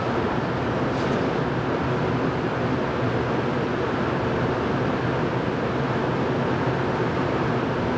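Steady hum and hiss of a Montreal Metro train standing at the platform with its on-board equipment running.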